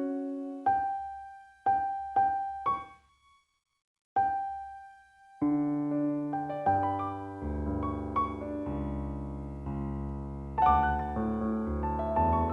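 Background piano music: a few slow single notes, each fading away, a brief pause, then fuller chords played more continuously.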